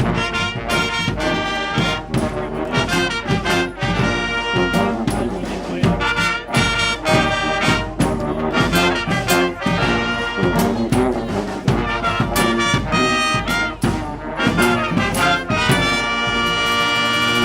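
Street brass band of trumpets and trombones with drums playing a fast, rhythmic tune, then holding a long sustained chord near the end.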